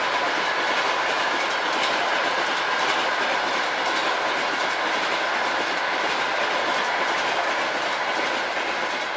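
A train passing through a level crossing at speed, its wheels clattering over the rail joints in a steady rush of noise that starts to fade near the end.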